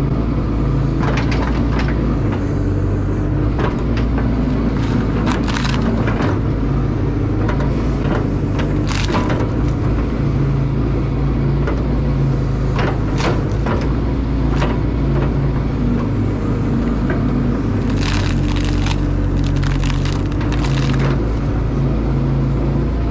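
Caterpillar excavator's diesel engine running steadily under load while the bucket works through dirt and roots around a large fir stump, with repeated sharp cracks and crunches of wood breaking.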